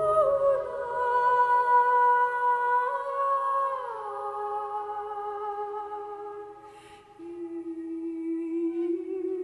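Background music: slow, held, hummed-sounding notes that slide to a new pitch every few seconds.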